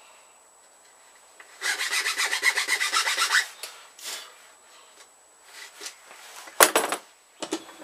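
Small triangle file rasping into a groove in a plywood crossbow stock, a quick run of rapid strokes for about two seconds. Then a few lighter scrapes, and a sharp knock near the end is the loudest sound.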